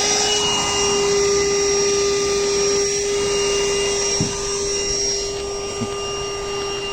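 VacLife VL106 cordless handheld vacuum running with a steady motor whine and a rush of suction air, with two light knocks in the second half.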